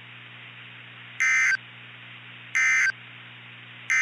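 Three short, buzzing digital data bursts of the Emergency Alert System's SAME code, about 1.3 seconds apart, over a steady low hum: the end-of-message signal that closes an alert broadcast.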